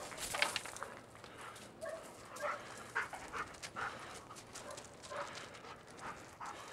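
Police explosives-detection dog working a search on leash: a run of short, irregular panting and sniffing sounds, a few a second, mixed with footsteps and scuffs.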